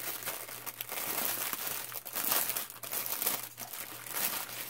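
Clear plastic bag crinkling as it is handled and pulled open, with small plastic packets of diamond-painting drills inside it.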